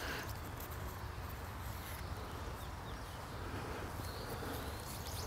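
Quiet outdoor ambience: a steady low background of insects with a few faint bird chirps.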